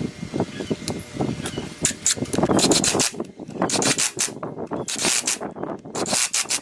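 Irregular rubbing and scraping strokes, a hand working a tool or cloth over a hard surface.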